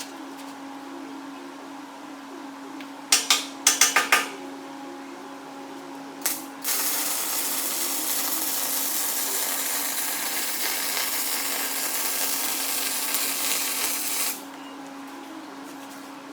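MIG welder striking its arc in a few short stuttering bursts about three seconds in and once more about six seconds in, then running a continuous bead for about eight seconds before cutting off. It is laying a capping pass into a ground groove on a 3-inch solid steel shaft, with the wire feed turned down a little. A steady hum runs underneath.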